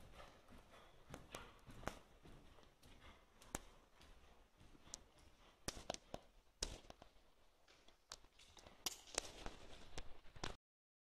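Faint, irregular hoofbeats of a ridden horse moving over the soft sand footing of an indoor arena, with scattered sharp clicks among them; the sound cuts off abruptly just before the end.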